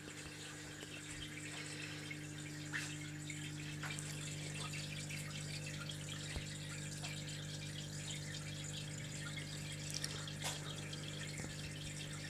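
Aquarium filter running: water splashing and trickling at the surface over a steady low hum from the pump motor, with scattered small drips.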